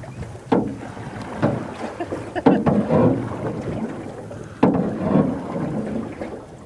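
A few sharp knocks and bumps in a small aluminium boat, over wind rushing on the microphone.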